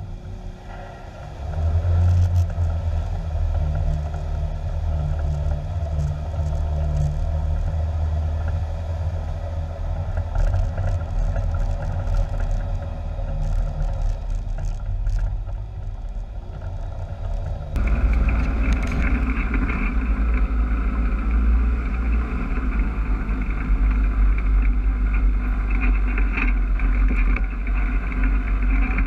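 Side-by-side UTV engine running as the machine drives along a muddy trail, heard from on board. About eighteen seconds in, the sound changes abruptly to a louder, noisier drone.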